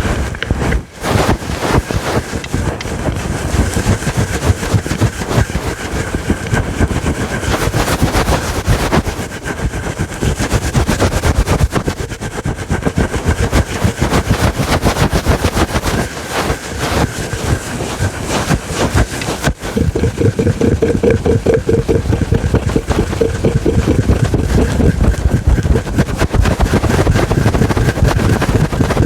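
Fingernails scratching a fluffy microphone windscreen up close: a rapid, continuous run of loud, rough strokes.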